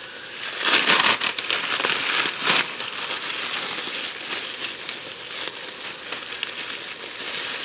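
Plastic cling wrap crinkling as ground beef is squeezed out of it into the pot, loudest about a second in and again near two and a half seconds. Onions and peppers sizzle in butter and oil underneath.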